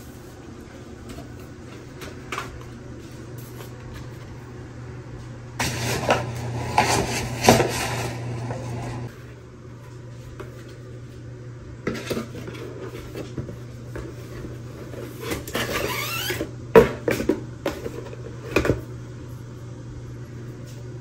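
Cardboard shipping box and its packaging being handled and opened: a few seconds of rustling and scraping, then scattered knocks and rustles, with a sharp knock, the loudest sound, near the end as the shower head is handled. A steady low hum runs underneath.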